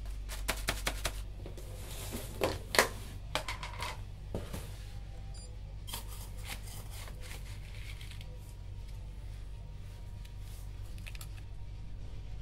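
Handling noise from scooping enamel powder: a scoop rustling in a plastic bin liner and scraping and tapping, giving irregular clicks and short rustles that cluster in the first few seconds and again about six seconds in, over a low steady hum.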